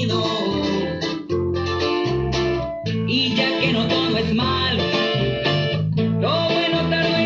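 Recorded music with guitar, a strong pulsing bass and singing, played back through a home speaker system.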